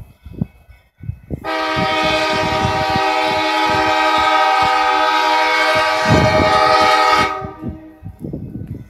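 Air horn of an approaching EMD GP38-series diesel locomotive sounding one long, steady chord for about six seconds, cutting off near the end, with low knocks and rumble of the train underneath.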